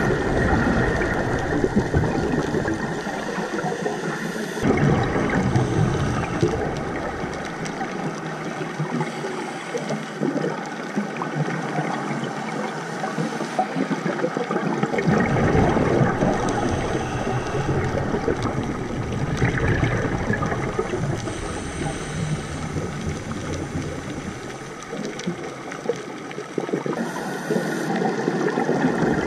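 Underwater water noise picked up by a dive camera: a continuous rushing wash that swells and fades in stretches, with a deeper rumble at times.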